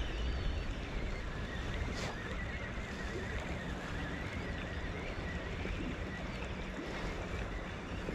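Steady outdoor wash of wind on the microphone and river water, with a faint thin high tone wavering through the middle.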